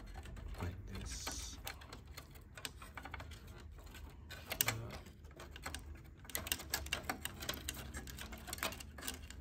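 Irregular light clicks and taps from handling a laser printer's flat ribbon cables and plastic parts, with a brief rustle about a second in.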